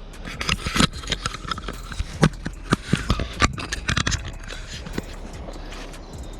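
A quick, irregular series of sharp clicks and knocks for about four and a half seconds, then quieter.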